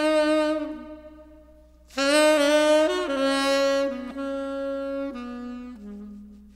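Slow solo saxophone melody of long held notes: one phrase fades out in the first second, and after a short pause a new phrase starts about two seconds in, stepping down note by note and dying away near the end.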